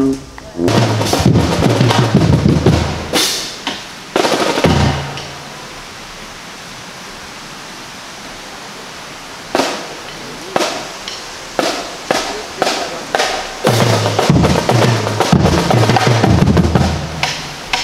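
Marching drumline playing a cadence: rapid snare drum strokes and rolls over pitched bass drum notes in loud rhythmic bursts, with a lull of a few seconds in the middle.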